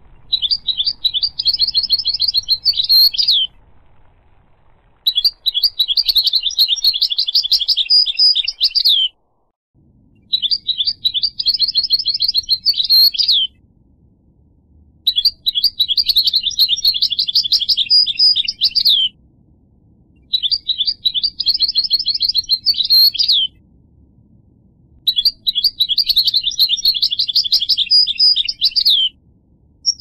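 European goldfinch singing: six phrases of quick, twittering high notes, each lasting three to four seconds, with short pauses between them.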